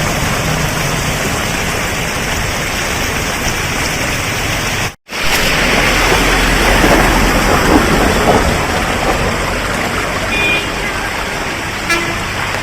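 Steady rushing of floodwater, a loud even noise with a sharp cut about five seconds in. A short high tone, like a horn toot, sounds near the end.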